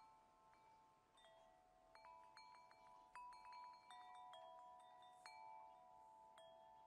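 Faint bell-like chime tones, many notes struck at irregular moments and ringing on over one another, with the strikes coming thickest in the middle.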